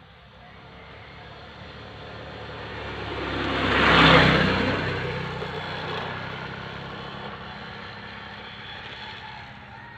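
A motorbike passes close by on the road: its engine and tyre noise grow louder, peak about four seconds in, then fade away.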